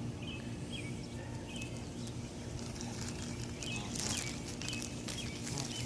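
Goslings peeping: short, high cheeps repeating a little over once a second, over a steady low hum.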